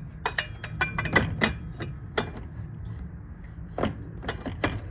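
Irregular metal clinks and knocks, several ringing briefly, as the old water pump and its bolts are worked loose from the engine block by hand and with tools. They come in a quick cluster at first, thin out, and pick up again near the end.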